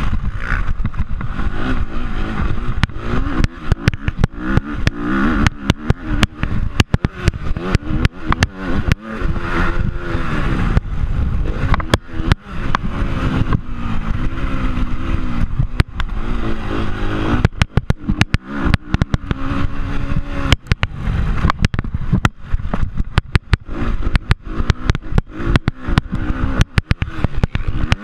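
Dirt bike engine revving hard, its pitch climbing and dropping again and again as the rider works the throttle through the track. Wind rumble and frequent sharp knocks on the chest-mounted camera sound throughout.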